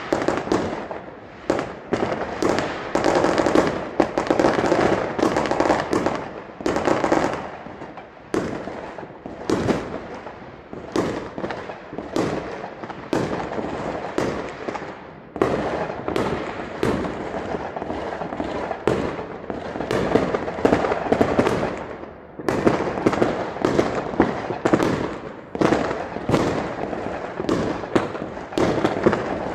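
Fireworks and firecrackers going off in a dense, continuous barrage. Many sharp bangs come every second over a steady crackle, with no pause.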